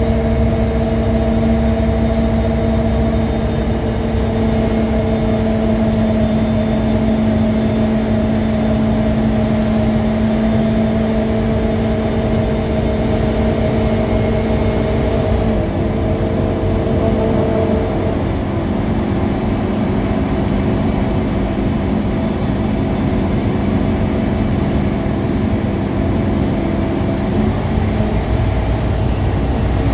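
Scania K310UA articulated bus under way, heard from inside the passenger saloon: a steady diesel engine and drivetrain hum over a low road rumble. The hum's pitch steps down about halfway through and shifts again near the end.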